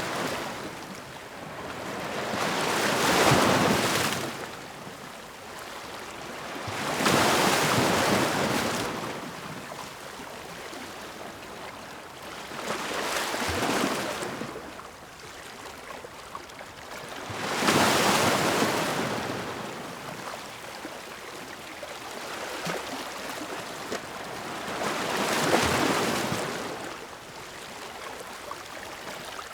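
Ocean waves breaking and washing in: five slow surges of hiss, each swelling and fading over a few seconds, with a softer steady wash between them.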